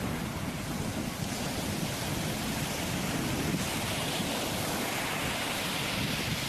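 A steady rushing noise, its hiss growing a little stronger about halfway through.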